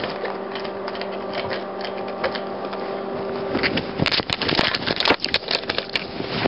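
Camera microphone muffled inside a pocket: fabric rubbing and scraping over the microphone against a steady hum. The hum fades a little past halfway, and loud rubbing and clicking handling noise follows.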